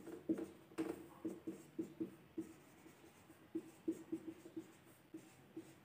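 Marker pen writing on a whiteboard: a run of short, irregular squeaky strokes, a few a second, as letters are formed.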